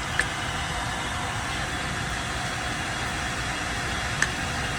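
Shop vac running steadily in blower mode, pushing air into a van's exhaust system to find leaks, with air escaping at a leaking pipe connection. Two small clicks, one near the start and one near the end.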